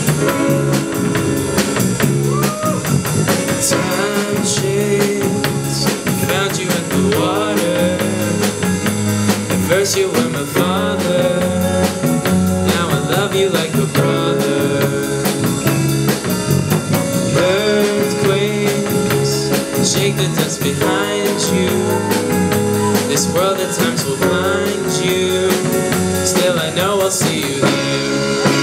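Live band playing a rock song: a male voice singing over keyboard, electric bass and drum kit.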